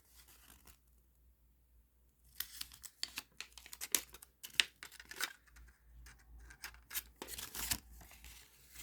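Paper rustling and crinkling as a folded paper guarantee leaflet is opened out and handled. It comes in short, crackly strokes that start about two seconds in.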